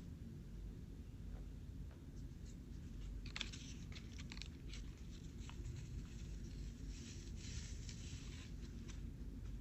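Sheet of paper rustling and crackling as it is folded and creased by hand, with a burst of rustling about three and a half seconds in and another longer one near the end.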